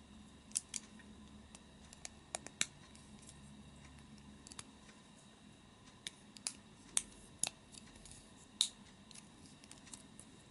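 Snap-fit plastic model-kit parts clicking and snapping as the halves of a Gunpla beam rifle are pressed together and handled. About a dozen sharp, irregular clicks come in two clusters: one around the first few seconds and one from about six to nine seconds in.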